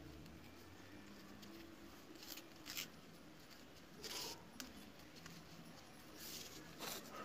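Faint rustling and scraping of a belt and its buckle being handled and fastened around a costume's waist: several short scuffs, the longest about four seconds in.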